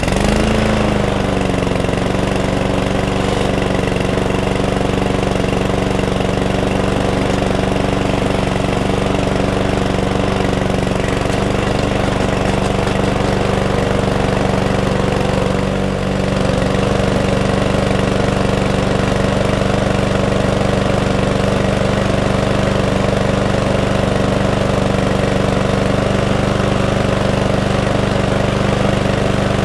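Small single-cylinder four-stroke engine of a cheap rotary lawnmower catching on the pull, flaring briefly, then running steadily, with one small dip about halfway. It now stays running after a carburettor clean and fuel-tank flush, which cured its fuel problem of firing up but dying.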